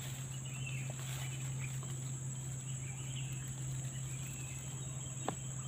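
Steady drone of insects in the forest, with faint short chirps over it and a single sharp click about five seconds in.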